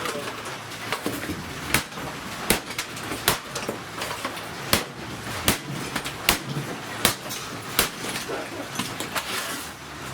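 Baseball bat striking a vacuum cleaner again and again, about one sharp hit every three-quarters of a second, over a steady noise.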